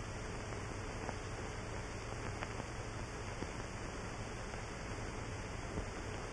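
Steady hiss and low hum of an old optical film soundtrack, with a few faint scattered clicks of crackle.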